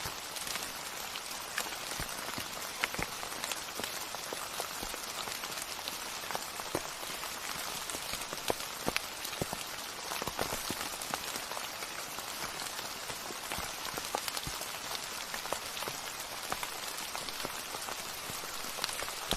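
Steady rain falling, with individual drops striking close by as scattered sharp taps over an even hiss.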